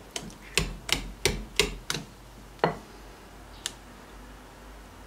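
Wire whisk beating waffle batter in a glass bowl, clicking against the bowl about three times a second. The beating stops about two seconds in, followed by two single taps a second apart.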